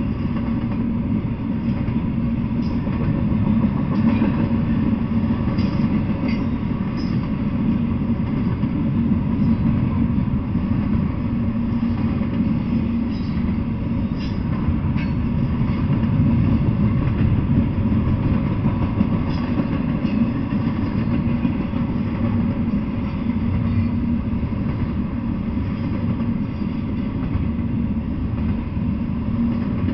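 Double-stack intermodal container freight train rolling past at steady speed: a continuous low rumble of wheels on rail, with a few faint clicks scattered through it.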